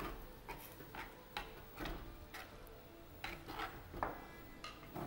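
A metal spoon scraping and knocking against the inside of an earthenware pot in short, irregular strokes as ground masala paste is worked in among pieces of fish.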